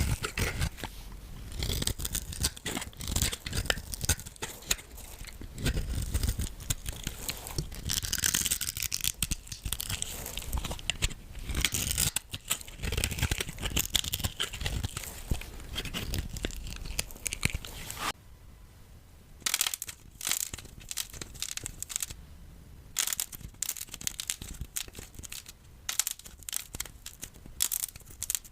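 Soap being broken up: dense, irregular crackling and crunching as the soap crumbles, with a short quieter pause about eighteen seconds in.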